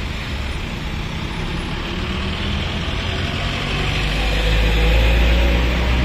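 Highway traffic: diesel engines of buses and trucks running past with tyre noise. A large container truck's engine rumbles louder as it draws close, about four seconds in.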